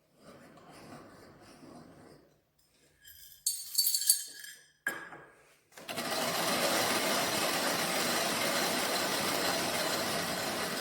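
Antique coffee mill: a few metallic clinks and rattles, then from about six seconds in the mill grinding coffee with a loud, steady, gritty noise.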